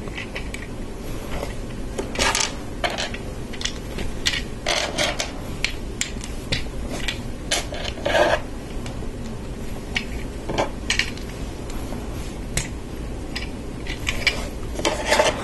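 Plastic LEGO bricks clicking and clattering as pieces are pressed onto a model and handled: a scattered, irregular series of short clicks.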